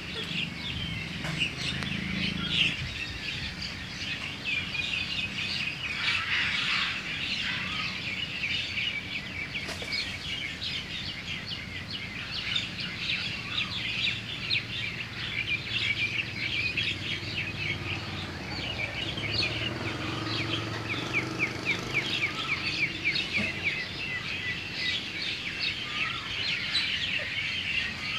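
Many small birds chirping continuously in a dense run of quick, high chirps.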